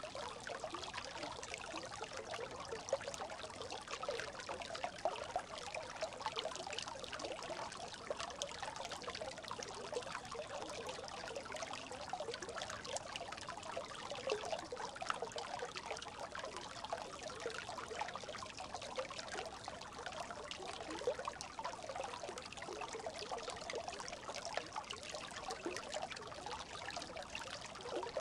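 A brook babbling steadily: running water trickling with a dense, continuous patter of small splashes and bubbles.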